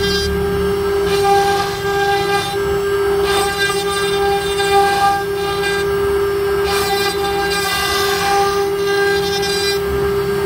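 CNC router spindle whining at a steady pitch as a small carving bit cuts an ornament into an MDF board. Hissing cutting noise swells and fades every second or two as the bit bites into the material.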